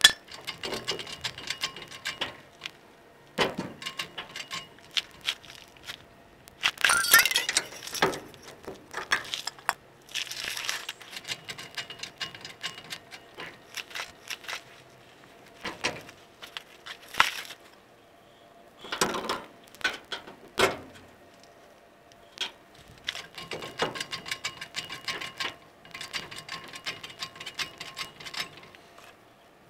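Hand tools working on metal on an old pickup's leaf-spring hardware: irregular clicks, knocks and short scraping rattles, with brief quiet gaps between them.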